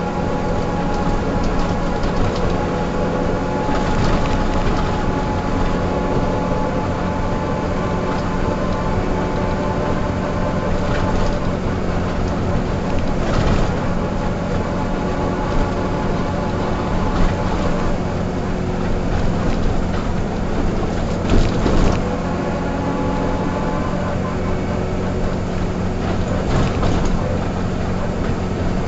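Mercedes-Benz O305 city bus's diesel engine running steadily, with a few brief knocks and rattles now and then.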